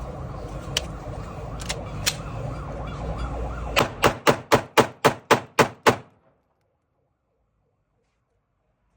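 Glock 19X 9mm pistol fired rapidly, about nine shots at roughly four a second, over a steady low background rumble. The sound cuts off suddenly just after the last shot.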